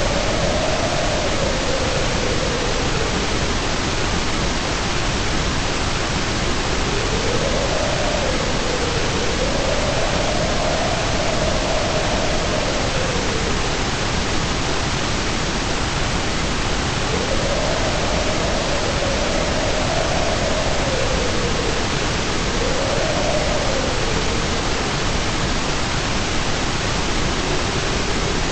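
Steady synthetic white-noise hiss, even and unchanging in loudness, with a faint hum in it that slowly wavers up and down in pitch every few seconds.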